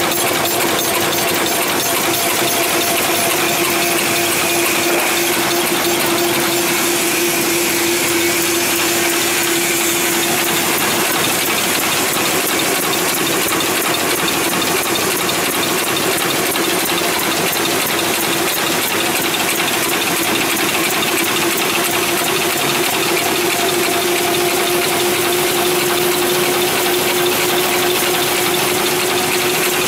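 Double-layer napkin folding machine running at speed: a continuous fast mechanical clatter with a steady hum.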